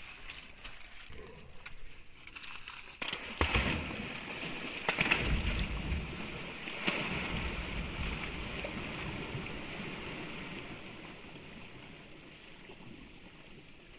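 A dog bounding into shallow water and splashing through it, loudest from about three to seven seconds in with a few sharp slaps, then fading as it swims away.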